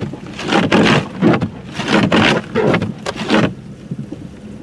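Car driving through heavy snow in a blizzard: irregular surges of rushing, scraping noise, easing off about three and a half seconds in.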